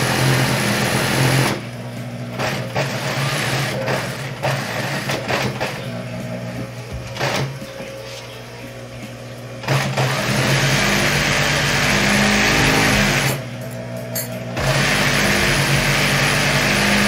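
Industrial flatbed sewing machine stitching a fabric strap in runs: a short run at the start, a steady run of about three seconds starting about ten seconds in, and another after a brief pause near the end. Between runs it is quieter, with faint handling clicks as the strap is repositioned.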